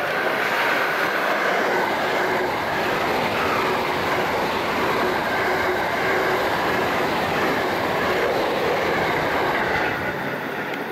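JR West 683 series electric multiple-unit train running past: steady, loud wheel-on-rail noise, easing off near the end as the rear car goes by.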